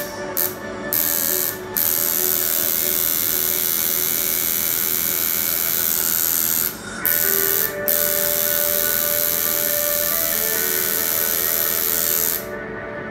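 Electric tattoo machine buzzing steadily as the needle works, cutting out briefly several times: within the first second, a few times in the middle, and near the end.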